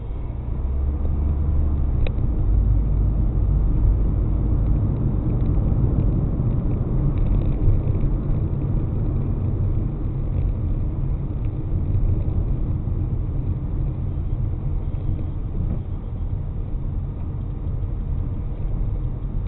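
A car driving, its engine and tyres making a steady low rumble heard from inside the car.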